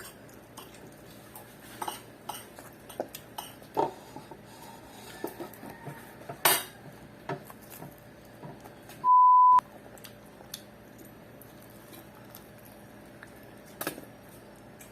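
Cutlery clinking and scraping on plates and takeaway containers during a meal, in scattered short clicks, the loudest about six and a half seconds in. About nine seconds in, a steady electronic beep lasts half a second while all other sound drops out.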